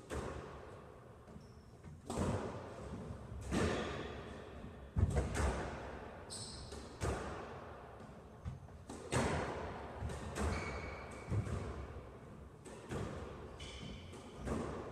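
Squash rally: the ball struck by rackets and smacking off the court walls, sharp echoing knocks every one to two seconds, with a few brief shoe squeaks on the court floor.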